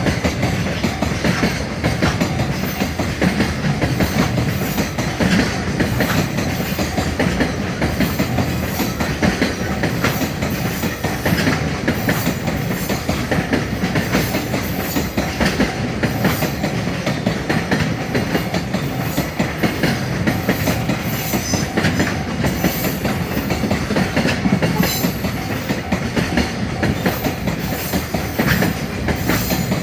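Freight train passing at track speed, a steady rumble with a dense run of clicks from the wagon wheels over the rails.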